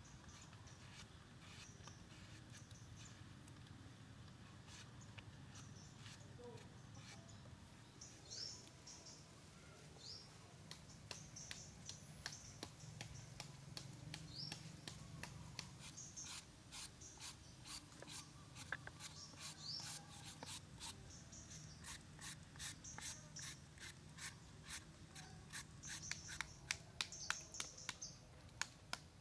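A knife blade chopping and shaving a hard green fruit: a run of light, quick clicks that grows denser and louder over the second half. Small birds chirp now and then.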